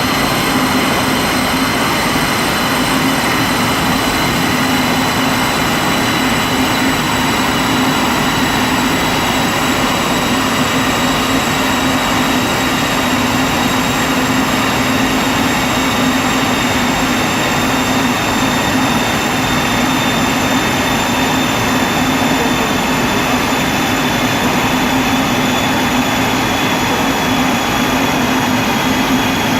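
Audi S1 running at a steady speed on a rolling road, its wheels driving the dyno rollers: a constant drone with a high whine that drifts very slightly lower, and no pops or bangs.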